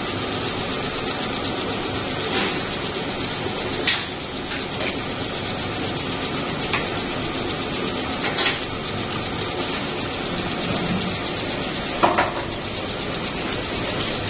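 Plastic injection moulding machine running with a steady mechanical noise, while the steel tap mould and its core rod are handled, giving several sharp metal clanks, the loudest about four seconds in and again about twelve seconds in.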